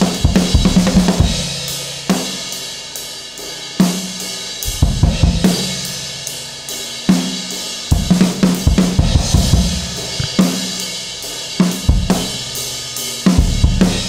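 Acoustic drum kit played with sticks in an improvised groove: busy clusters of snare, tom and bass drum hits every second or two, with lighter passages between where the cymbals ring on.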